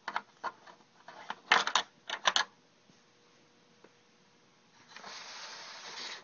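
Small hard plastic toy parts of a Playskool McDonald's playset clicking and rattling as a hand works the tray-return slot. About five seconds in, a soft steady hiss follows.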